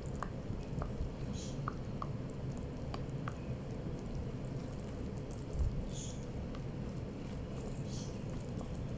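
Silicone spatula stirring dry flour in a mixing bowl: soft scrapes and light ticks against the bowl, with a soft thump a little past halfway, over a steady low hum.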